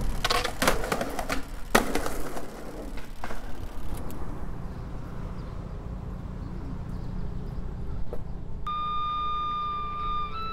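Skateboard wheels rolling on pavement with a low, steady rumble, with several sharp clacks of the board in the first two seconds. Near the end a steady held note with overtones comes in and steps up in pitch just before the end.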